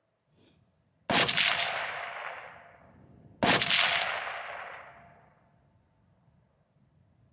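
Two rifle shots about two and a half seconds apart, each sudden and loud, with a long echo that fades away over about two seconds.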